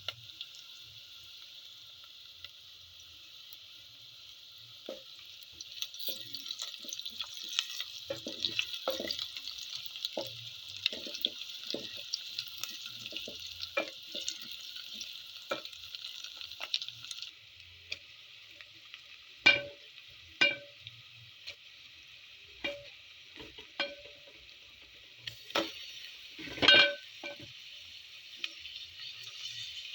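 Food frying in a pot with a steady sizzle, while a cooking spoon scrapes and knocks against the pot as it is stirred. Several sharper knocks come in the second half.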